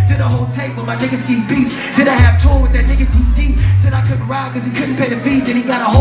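Live hip-hop beat with long, deep bass notes, and a rapper's voice on a handheld microphone over it through the venue's sound system.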